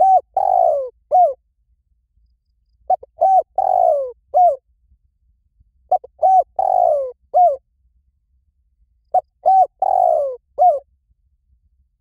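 Spotted dove cooing: a phrase of short coos around one longer, louder, falling coo, repeated four times about every three seconds.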